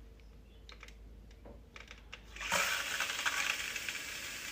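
A few faint clicks, then about halfway through a toilet bidet's water jet starts spraying with a steady hiss.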